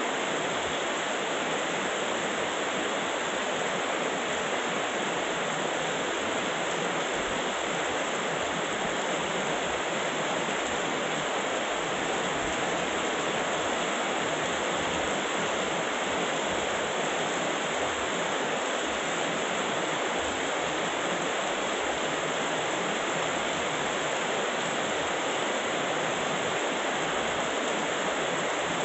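Heavy rain falling steadily, an even, unbroken hiss with no thunder claps.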